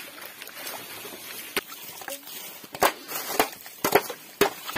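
Muddy stream water being splashed and bailed out by hand and with a metal pan, emptying a pool to catch fish. A quick run of sharp slaps and knocks starts about a third of the way in.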